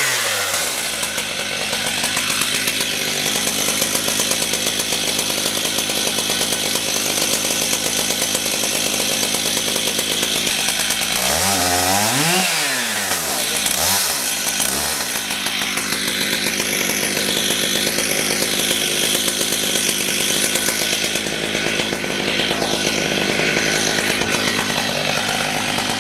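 Stihl MS 880 chainsaw's large two-stroke engine running hard and steady at high revs. About halfway through, the revs drop and rise again a few times.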